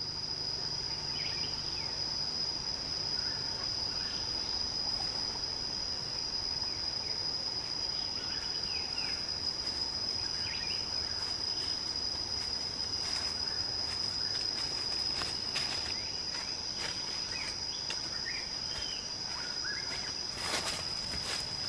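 Forest ambience: insects keep up a steady high-pitched drone, with short bird chirps scattered over it. A brief crackle comes near the end.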